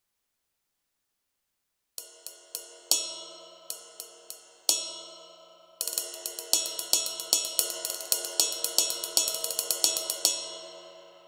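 Ride cymbal sound (bow and bell) from a Roland SPD::ONE Percussion electronic pad, struck with drumsticks. After about two seconds of silence come a few scattered hits that ring on, then about six seconds in a quick, even ride pattern for about four seconds that rings out near the end.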